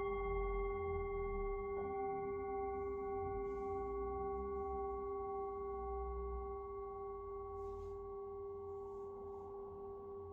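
Tibetan singing bowls ringing with long, overlapping tones. A second bowl is struck softly about two seconds in, and the tones hum on, slowly fading.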